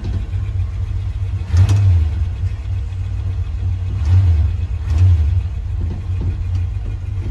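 1966 Dodge D100's 318 Poly V8 running just after a cold start, on a little choke, heard from inside the cab. A steady low rumble that swells briefly three times, about two, four and five seconds in.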